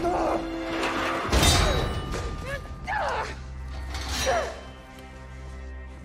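Film soundtrack: a tense music score with short cries or grunts over it, a loud crash about a second and a half in and another hit about four seconds in.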